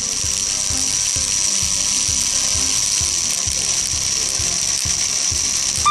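Whistle-controlled Plarail toy train running, its small electric motor whining with a regular clicking rattle from the gearbox: the sign of a cracked motor pinion. A steady whistle tone sounds at the very end.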